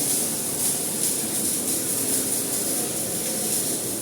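Steady factory workshop noise: an even machinery hum with a constant high hiss, no distinct knocks or starts.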